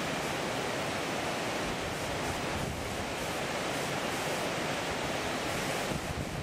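Steady rushing noise of the river's flowing water, with an irregular low rumble of wind on the microphone.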